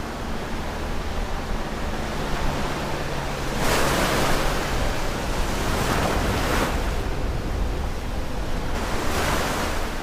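Sea surf: waves breaking and washing in, with a louder surge about four seconds in and another near the end.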